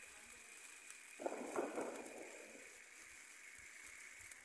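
Small ice fountain firework hissing steadily as it sprays sparks, with a louder rushing burst between about one and three seconds in.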